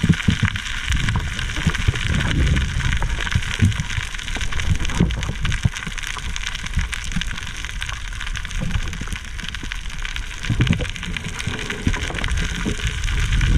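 Underwater sound picked up by a dive camera in its housing: an uneven low rumble and sloshing of water from the swimmer's movement under a steady hiss, with scattered faint clicks.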